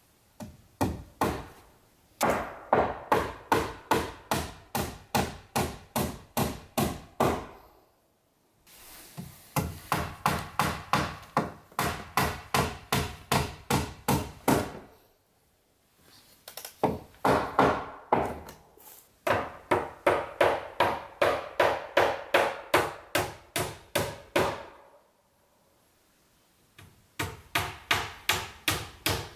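Hammer nailing wooden cladding boards: runs of quick, even blows, about three a second, with short pauses between runs.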